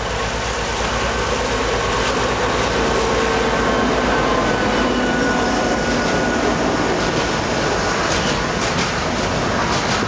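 A diesel freight train passing close by: a GySEV class 648 Ludmilla-type locomotive runs past first, then intermodal wagons loaded with semi-trailers roll by with steady wheel noise. Sharp clicks of wheels over rail joints come in the last two seconds.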